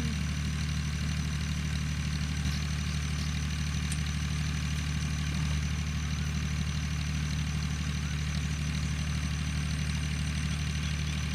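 A running motor giving a steady, unchanging low hum, with a faint steady high-pitched whine above it.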